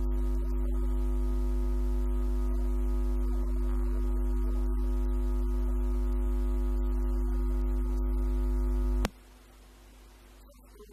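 A steady, deep electronic hum with several held tones stacked above it, cutting off suddenly about nine seconds in.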